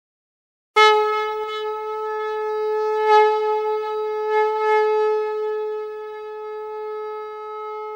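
Conch shell (shankh) blown in one long, steady note that starts about a second in, swelling slightly a few times.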